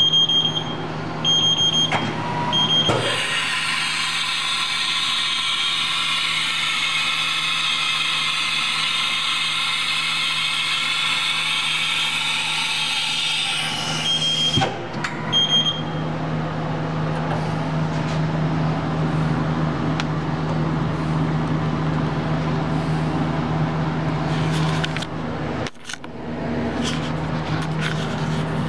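Haas TM-1 CNC mill's spindle starting up and running for about eleven seconds, a high whine with a hiss, before stopping abruptly. A steady machine hum runs underneath throughout. A high electronic beep repeats several times near the start and again just after the spindle stops.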